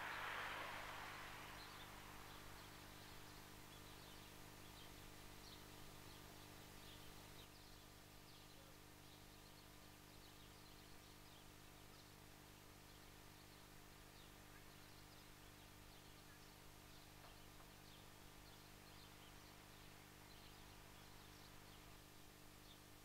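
Quiet outdoor ambience with faint bird chirps now and then. A soft rush of noise fades away in the first couple of seconds.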